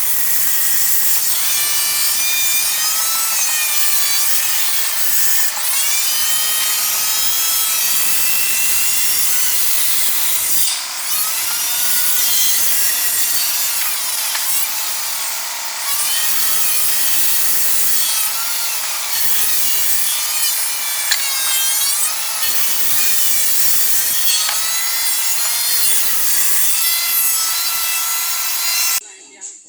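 Wood being sawn: a continuous, loud, rasping cut with shifting squeals in it. It stops abruptly just before the end.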